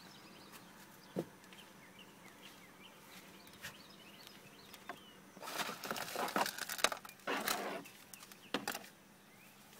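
Faint bird chirps, then from about halfway a few seconds of loud rustling and crackling as things are moved and handled close to the microphone.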